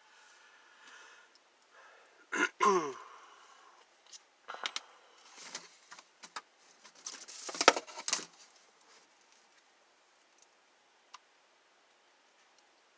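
Handling noises at a workbench: a short squeak with falling pitch about two and a half seconds in, then scattered clicks and knocks, and a rattling clatter around the seven-to-eight-second mark. After that it is nearly quiet.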